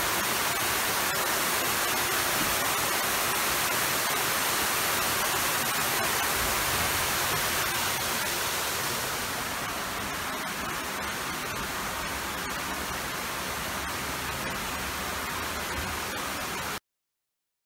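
Water pouring down the face of a lock gate into the chamber: a steady rushing hiss. It eases slightly about halfway through and cuts off abruptly near the end.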